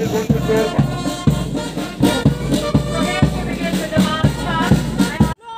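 Police marching band of brass, bagpipes and drums playing a march, the bass drum beating a steady marching beat about twice a second. The music breaks off suddenly just before the end.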